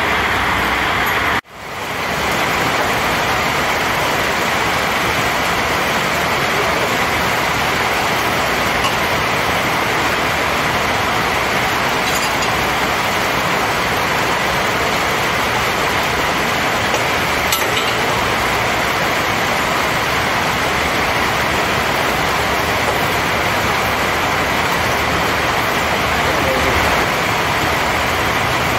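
Heavy downpour heard from inside a workshop: a steady, loud hiss. It drops out for a moment about a second and a half in.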